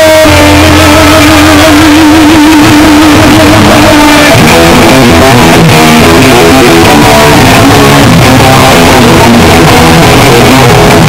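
Loud live lead electric guitar played through a Bogner amp and Marshall cabinets. It opens on one long held note with a wavering vibrato, then breaks into fast runs of notes about four seconds in.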